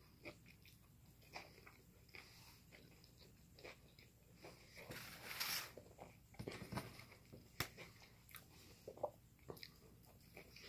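Faint close-miked chewing and biting of a cheeseburger: soft, wet mouth clicks scattered through, with a short breathy rush about five seconds in.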